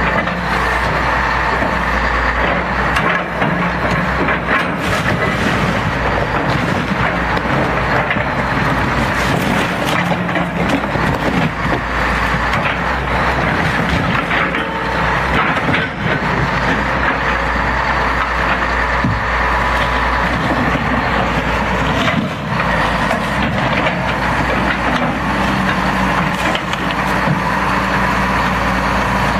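Excavator engine running steadily under load while its bucket smashes and crushes a boat hull, with repeated cracking and splintering.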